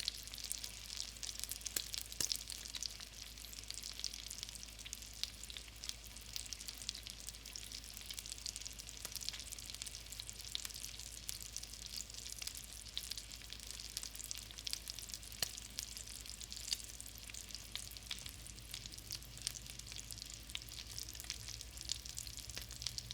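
Hot grease frying: a steady sizzling hiss with dense, irregular crackling and popping.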